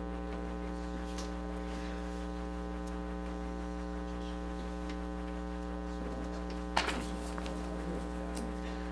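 Steady electrical mains hum with a buzzy stack of higher tones above it, and a single sharp knock about seven seconds in.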